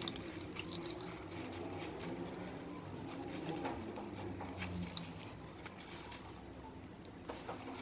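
Faint squishing and small sticky crackles of foamy styrofoam-and-acetone slime being squeezed and stretched by hand.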